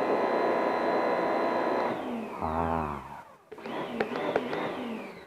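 Electric motor of a snow-foam sprayer running steadily with a whine, then switched off about two seconds in, its whine falling in pitch as it winds down.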